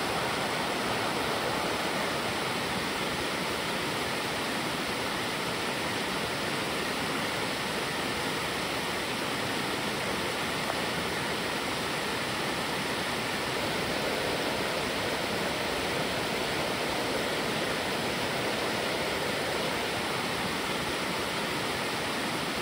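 A high, fast-running stream rushing over shallow riffles: a steady, even rush of water with no breaks.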